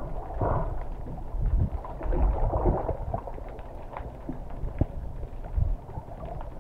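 Muffled underwater water noise picked up by a submerged camera: an uneven low rumble of moving water with faint gurgles and a few scattered clicks.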